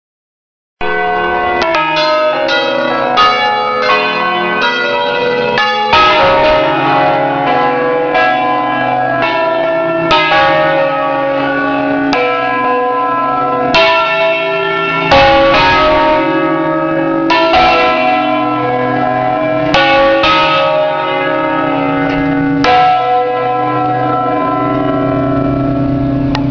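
Eight Ambrosian-system church bells tuned in C, rung as a festive 'concerto solenne' played by hand from the electric control unit. They start about a second in with quick strikes, about two a second, then go on to heavier, overlapping strikes every second or two, each bell ringing on.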